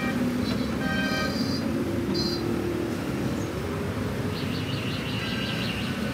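Steady low rumble of background traffic, with a few short high-pitched tones about a second in and again between about four and five and a half seconds in.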